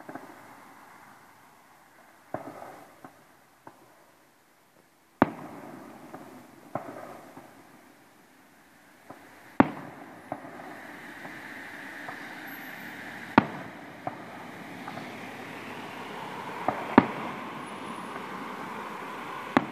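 Fireworks display: aerial shells bursting in the sky with sharp bangs every few seconds, about seven in all. A steady noisy wash builds up from about halfway through.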